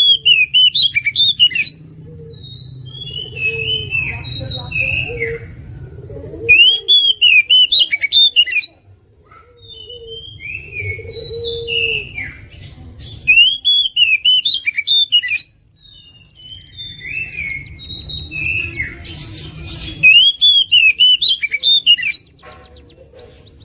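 Oriental magpie-robin in full song: four loud phrases of fast notes, each rising and falling, about every six to seven seconds. Between them come quieter scattered chirps and whistles.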